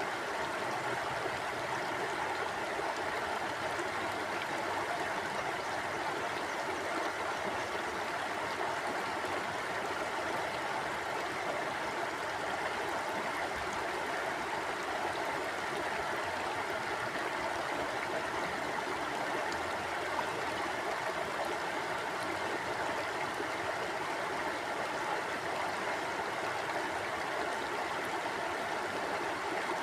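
Shallow stream flowing steadily over rocks: a constant, even rush of water with a light gurgle.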